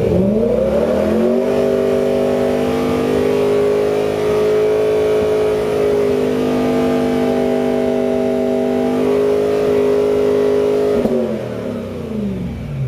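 BMW E92 M3's 4.0-litre V8 through an Ericsson Progress-spec aftermarket exhaust, revved up over the first second or so, held steady at high revs for about nine seconds, then dropping back near the end.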